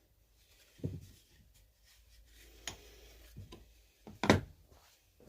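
Wooden pieces being handled and set down: a few scattered knocks with faint rubbing between them, the loudest knock about four seconds in.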